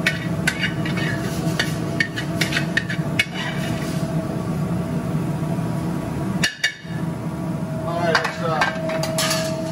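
Metal utensil clacking and scraping against a skillet as mac and cheese is dished out, in clusters of sharp clicks at the start and again near the end, over a steady background hum.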